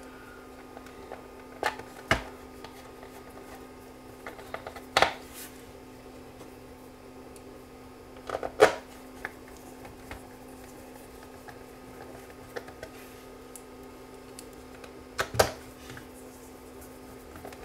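Small screwdriver and hands working on the metal back of a small CRT monitor: a handful of sharp clicks and taps spread out over a quiet stretch, with a faint steady hum underneath.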